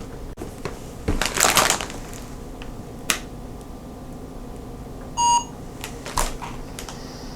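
A plastic snack bag crinkling in the hands about a second in, a few light taps, then a short electronic beep from a phone's barcode-scanning app about five seconds in as it reads the package.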